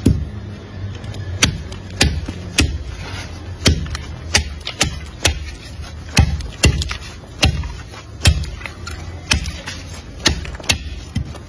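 Heavy curved chopping knife striking husked bamboo shoots on a wooden stump block, a steady run of sharp chops about two a second.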